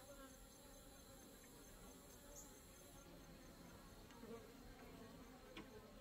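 Faint, steady hum of Cordovan Italian honeybees from an open hive.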